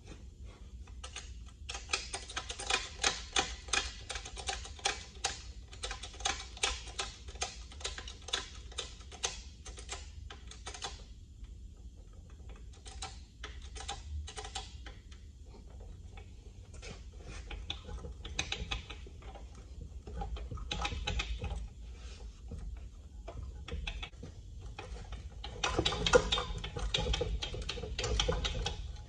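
Hand pump of a wheel dolly's hydraulic bottle jack being worked to lift a truck wheel: a quick, even run of clicks and knocks, about three a second, for the first ten seconds or so, then scattered clicks, then another dense run near the end.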